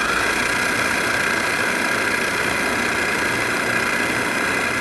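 Vitamix food processor running steadily at full speed, its blade chopping raw chicken and aromatics down into a ground-meat mixture, with a constant high motor whine over the churning of the meat.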